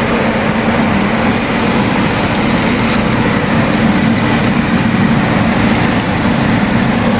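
Loud, steady rushing noise with a low hum underneath, holding unchanged throughout.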